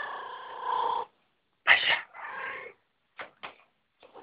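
Domestic cat yowling: one long drawn-out call that ends about a second in, then two shorter calls close together near the two-second mark.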